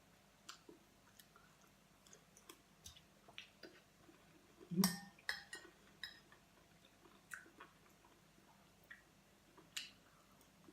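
Someone chewing food, with soft scattered mouth clicks and a louder cluster of clicks about five seconds in.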